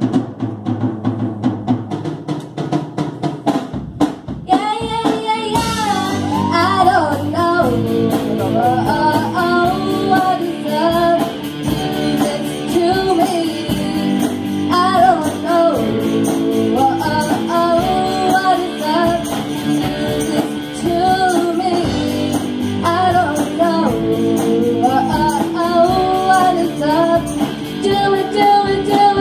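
Live rock band with electric guitars and a drum kit playing a song. The first few seconds are instrumental, with drum hits about four seconds in, then girls' voices sing the melody over the band.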